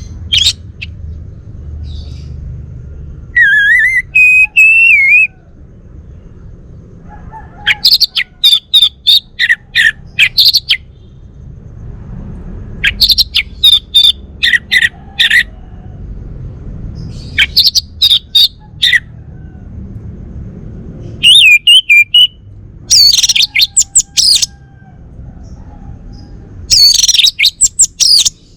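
Male orange-headed thrush of the Bali race singing: loud, varied phrases of quick whistled notes and trills, about seven of them, each a second or two long with short pauses between, over a low background rumble.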